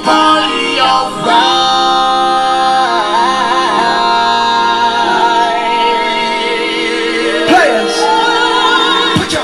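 A song with long held, wavering sung notes playing at full volume through a small Ancord portable Bluetooth speaker; it is very loud. A rising sweep comes in near the end.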